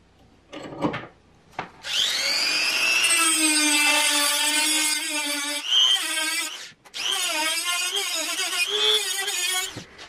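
High-speed rotary tool with an abrasive cutoff wheel grinding a notch into a steel screw head held in a vise. Its whine spins up about two seconds in and wavers in pitch as the wheel bites. It stops briefly near seven seconds, then runs again and cuts off just before the end, after a short knock or two at the start.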